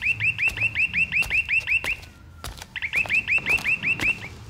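Apartment door intercom ringing: a repeated electronic chirping tone, about six chirps a second, in two bursts with a short pause about two seconds in. Footsteps sound along with it.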